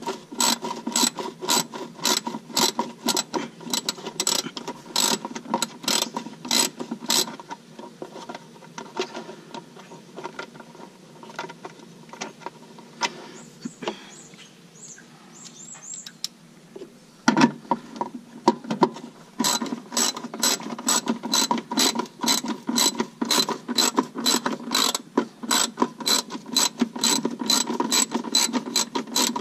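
Hand ratchet wrench clicking in quick, even strokes as bolts are run in to fasten the new fuel tank up into place. The clicking stops for several seconds midway, broken by a single knock, then starts again at a faster, steady pace.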